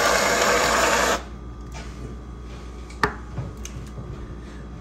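Aerosol can of whipped cream spraying onto a paper plate: a loud hiss for about a second that then stops, followed by a single light click about three seconds in.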